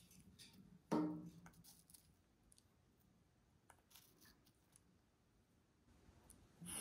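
African grey parrot biting into a wedge of watermelon: faint, scattered crunching clicks of its beak in the wet flesh. A brief louder low sound comes about a second in.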